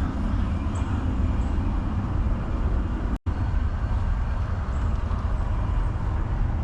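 Steady low rumbling of wind buffeting the microphone, broken by a split-second dropout about three seconds in.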